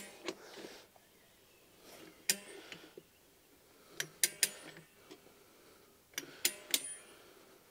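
Metal clicks from a Rabaconda motorcycle tire-changer lever and its mounting head as the bar is worked around the wheel, stretching the tire's second bead over the rim. The clicks are sharp and scattered, with two quick runs of three about four and six seconds in.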